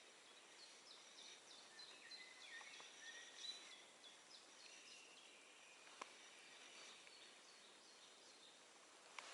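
Near silence with faint wild birdsong: many short chirps and trills from several birds over a low background hiss. A single small click about six seconds in.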